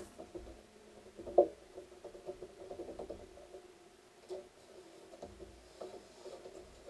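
Soft knocks and taps of thin wooden template strips being laid and shifted on MDF sheets, with one sharper knock about a second and a half in, over a faint steady hum.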